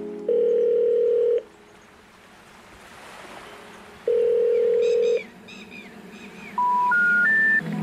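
Telephone-style electronic tones in the soundtrack. Two steady tones of about a second each are separated by a soft hiss, and short chirps come after the second tone. Three short beeps rising step by step in pitch come near the end.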